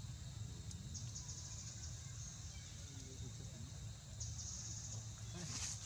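Insects chirring in the background, their high buzz pulsing in stretches about a second in and again from about four seconds on, over a steady low rumble. A brief sharp noise stands out near the end.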